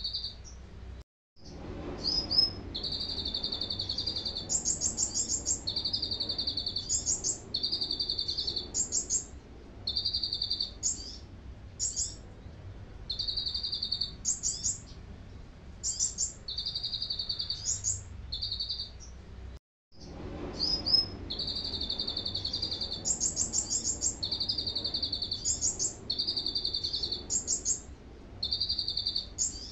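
A caged kolibri ninja, a small sunbird, singing a canary-style song it has learned. Fast trills alternate with short, higher rising notes, phrase after phrase with brief pauses, over a low steady hum. The sound cuts out completely for a moment about a second in and again near the middle.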